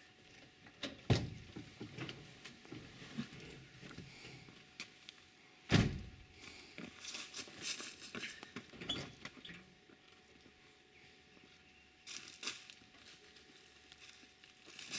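Two dull thumps, one about a second in and a louder one near six seconds, amid scattered faint knocks and rustling.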